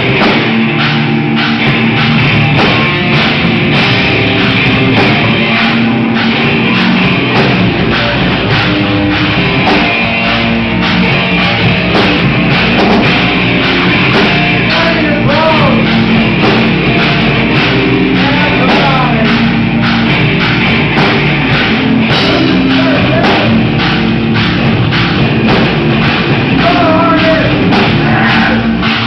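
Live rock band playing loud: drum kit, bass and guitars in a steady full-band groove.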